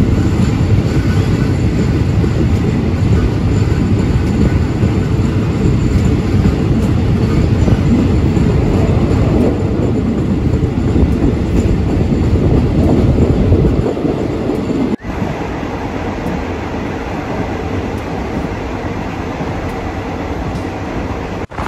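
Passenger train running on the rails, heard from aboard a third-class carriage: a loud, steady rumble that drops abruptly to a quieter run about 15 seconds in.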